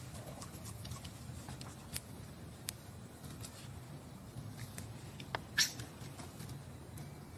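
Long-tailed macaques: scattered soft clicks as a monkey picks at and chews food, and one short high squeak about five and a half seconds in, over a low steady hum.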